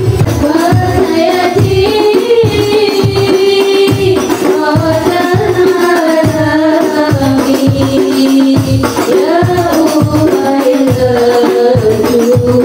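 Hadroh performance: women singing an Islamic devotional song to rebana frame drums and a large bass drum keeping a steady beat of about two strokes a second.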